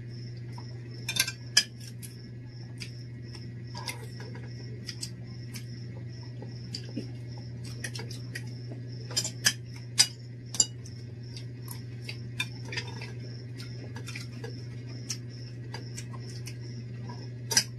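Metal spoons and forks clinking and scraping against plates during a meal: scattered sharp clinks, a few in quick clusters, over a steady low hum.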